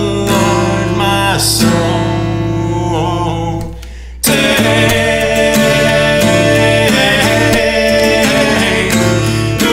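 Acoustic guitar strummed through an instrumental break. The music fades about three and a half seconds in, drops out for a moment, and comes back abruptly just after four seconds.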